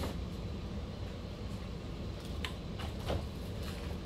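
A few light clicks and knocks of plastic RC car parts being handled, over a steady low background hum.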